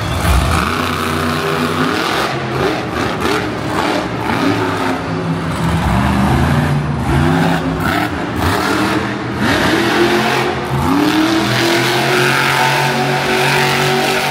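Monster truck engine revving again and again, its pitch climbing and falling with each burst of throttle as the truck drives and spins.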